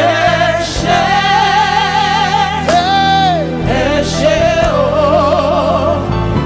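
Live gospel worship music: a singer holds long notes with vibrato, with short breaks between phrases, over sustained keyboard chords and bass.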